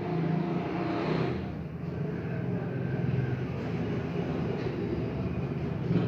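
Steady low rumble with a hum, unbroken throughout.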